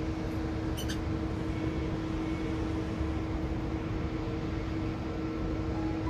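Steady machine-like hum over a low rumble, with one brief high chirp from a zebra finch about a second in.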